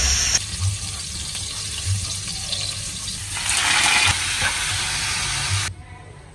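Running water, a steady hiss that swells for a moment about three and a half seconds in and stops abruptly near the end.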